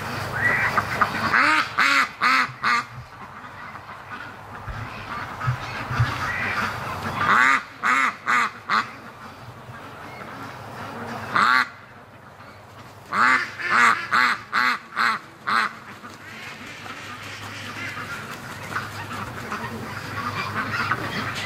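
White Pekin ducks quacking in several short runs of loud, repeated calls, with pauses between the runs.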